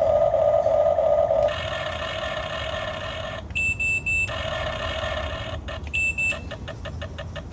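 Toy remote-control backhoe loader's small electric motors whining steadily, stopping and starting, with short high electronic beeps twice and a fast ticking near the end.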